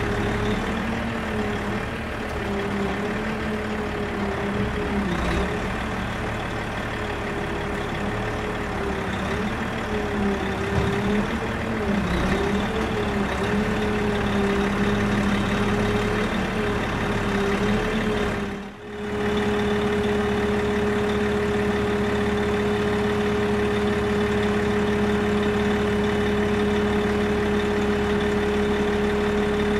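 DJI Phantom 2 quadcopter's motors and propellers humming, the pitch wavering up and down as it holds and shifts position. After a brief drop about two-thirds of the way in, the hum holds one steady pitch.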